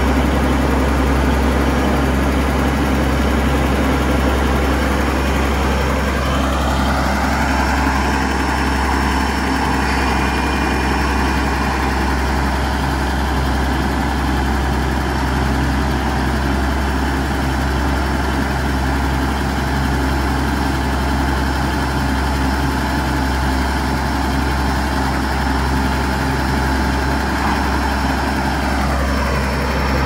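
Caterpillar D8R bulldozer's diesel engine idling steadily.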